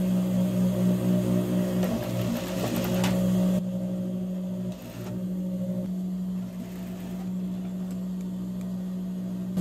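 Industrial sewing machine topstitching denim: the motor hums steadily while the needle runs for the first three and a half seconds or so. Then the stitching stops and only the motor hum remains.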